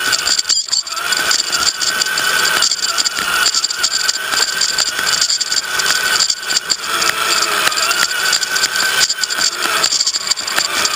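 RC crawler truck's electric motor and geared drivetrain whining steadily while it drives over a rough dirt track, with constant rattling and clicking of the chassis, heard from a camera mounted on the truck. The whine wavers slightly in pitch as the throttle changes.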